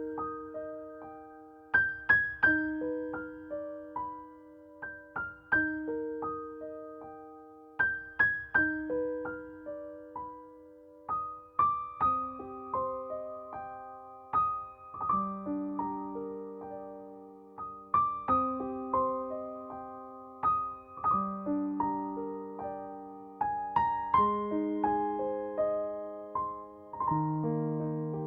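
Background piano music: slow, gentle broken chords, each note struck and left to ring and fade.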